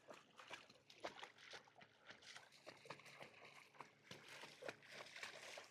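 Faint lake water sloshing and lapping, with many small irregular drips and splashes.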